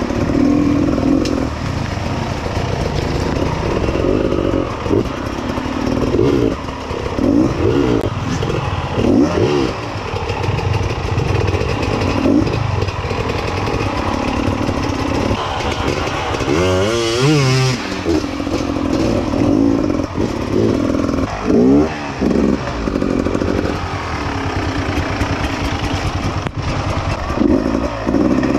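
Off-road dirt bike engines revving hard on a muddy climb. The pitch keeps rising and falling as the throttle is worked, with a quick rev up and back down about two thirds of the way through.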